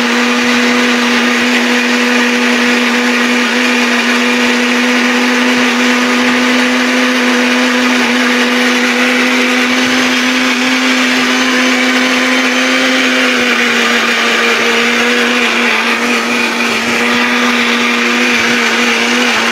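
Electric mixer grinder's motor running steadily at full speed, grinding soaked dried red chillies with a little water into a paste in its steel jar. A steady hum over the whir of the chopping, its pitch sagging slightly about two-thirds of the way through.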